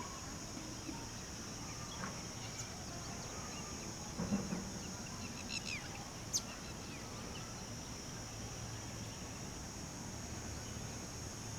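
Morning outdoor ambience: a steady high-pitched insect drone, with a few faint, scattered bird chirps, the sharpest a thin high note about six seconds in, and a short low fowl-like call about four seconds in.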